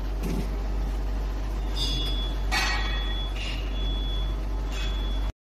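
Hydraulic rubber vacuum compression molding press running as its molds move in and close: a steady low machine hum, with four or five short hisses about halfway through. The sound cuts off abruptly near the end.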